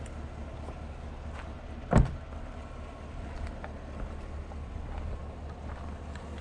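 A vehicle door shut with a single solid thump about two seconds in, over a low steady rumble.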